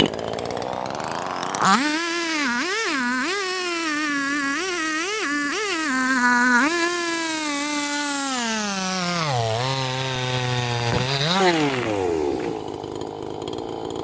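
A 43cc homeowner-size Husqvarna two-stroke chainsaw cutting, its engine speed dipping and recovering again and again as the bar loads in the wood. The saw bogs down under load, which the owner puts down to it needing retuning. Around nine seconds in the engine sinks to a low speed, revs up briefly, then settles to idle near the end.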